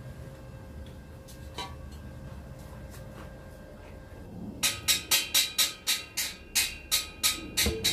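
Outdoor background noise with a few faint clicks. About halfway through, a hammer starts striking metal in quick, uneven blows, roughly three a second, each with a ringing note.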